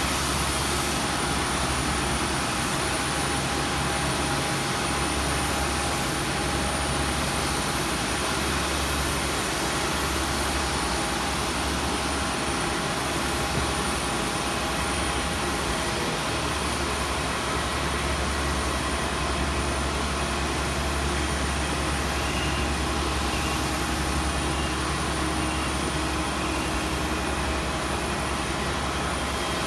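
Steady cabin noise of a jet airliner on the ground: a constant low hum under an even hiss, unchanging throughout.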